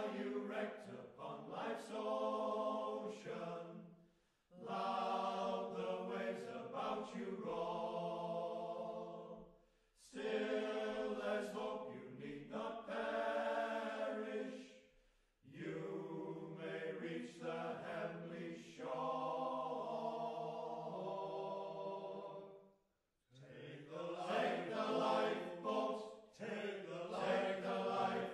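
Male fishermen's choir singing together, in phrases of about five seconds with brief breaths between them.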